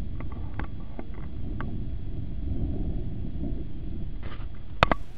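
Gale-force wind gusting through the hangar, heard as a steady low rumble of wind noise on the microphone, with a few faint ticks in the first couple of seconds. A sharp double click near the end is the loudest sound.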